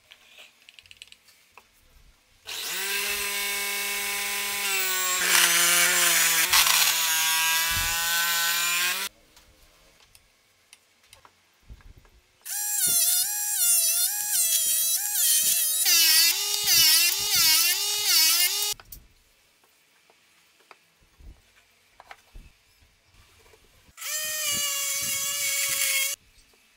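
Electric motor of a homemade drum sander running in three bouts, each starting and stopping abruptly with a steady whine. The pitch drops and wavers as a board is pressed against the spinning sanding drum.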